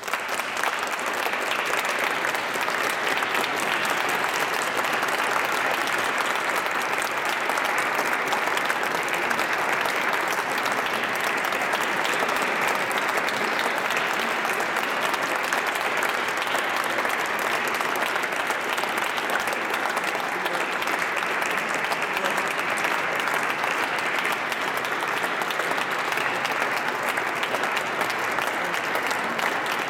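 A concert audience applauding: dense, steady clapping that breaks out at the very start, just as the orchestra's last chord fades away.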